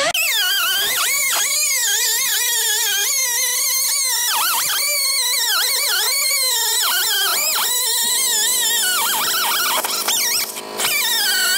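Air cut-off tool's small abrasive wheel cutting rusty steel body panel: a high whine that wavers up and down in pitch as the wheel is pressed into the cut and bogs under load. It drops off briefly near the end and picks straight back up.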